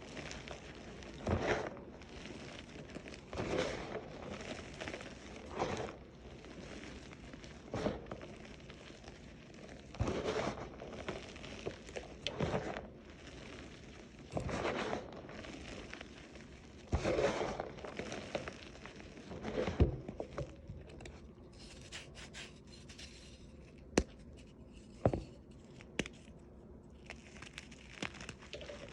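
Crunchy reformed chalk being crushed and crumbled, in irregular crunches every second or two, with a few short sharp clicks near the end.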